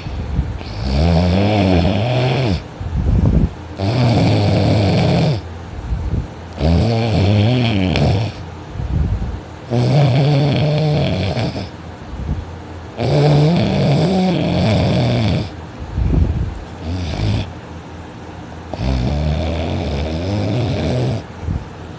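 Heavy, loud snoring from a person sleeping deeply on their back. A long snore comes about every three seconds, with a longer gap about two-thirds of the way through.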